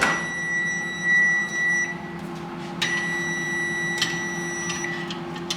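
Electronic beeping of a GE Cafe microwave oven: two long, steady high-pitched tones of about two seconds each, a short gap between them, over a steady low hum, with a few sharp clicks.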